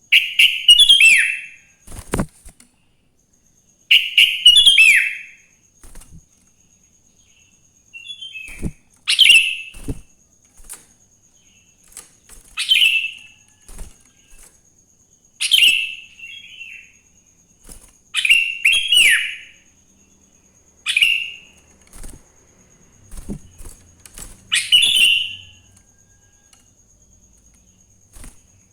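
Sooty-headed bulbul (kutilang) singing: short phrases of quick, falling notes, about one every two to three seconds, with a few soft knocks between them.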